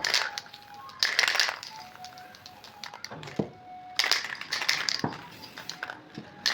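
Background music with a thin, simple melody. Three loud rasping strokes come over it, near the start, about a second in and about four seconds in.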